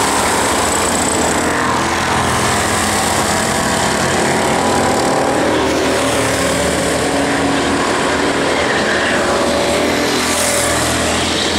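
Several go-kart engines running as the karts race round the circuit, a steady buzz of overlapping engines whose pitch keeps rising and falling.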